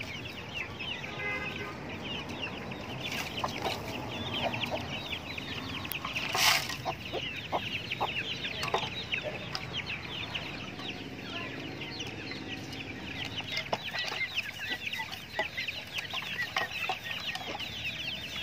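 A brood of chicks peeping continuously, a rapid overlapping run of short, high, falling chirps, with a hen's low clucks mixed in, while they feed. One brief loud noise cuts in about six seconds in.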